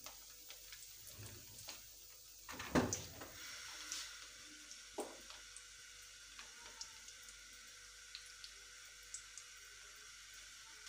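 Breaded potato snacks shallow-frying in hot oil: a steady hiss of sizzling with scattered small pops, which sets in after a single knock a little under three seconds in.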